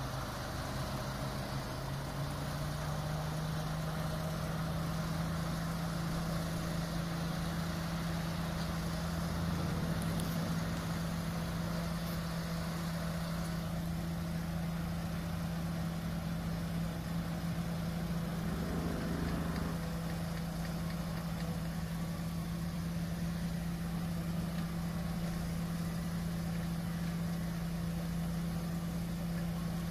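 Off-road 4x4 vehicle's engine running at a steady speed, its pitch stepping up slightly about two seconds in and then holding.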